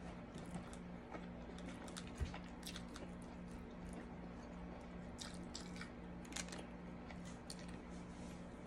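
Close-up chewing and mouth sounds of a person eating, with scattered small clicks of a fork scraping in a foil-lined takeout container, over a steady low hum.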